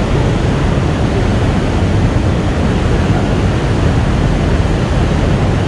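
Steady rushing noise of wind and moving water, heaviest in the low end, with no distinct events.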